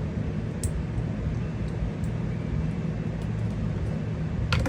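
Steady low background rumble, with a faint click about half a second in and a few sharp clicks near the end from small paintball marker regulator parts being handled.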